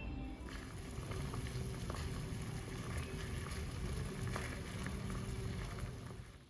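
Food cooking in a hot pan on the stove, a steady sizzle with small crackles that starts about half a second in and stops abruptly near the end.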